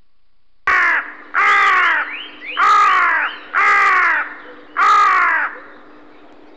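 A crow cawing five times in quick succession, each caw falling in pitch, over a steady low tone.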